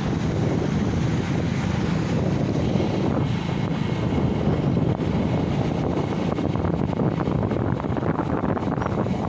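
Wind buffeting the microphone, over a steady rush of sea waves.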